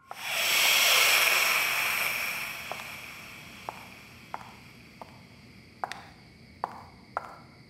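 A loud rushing whoosh swells up at the start and fades over the first few seconds. Then slow footsteps of high heels on a tiled floor come in, a sharp click about every two-thirds of a second.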